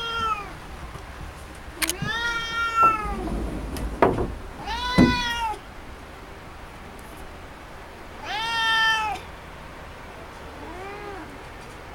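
Domestic cat meowing insistently, about four long meows a few seconds apart with the last one quieter, demanding that the air conditioner be turned on. A couple of sharp knocks come between the first meows.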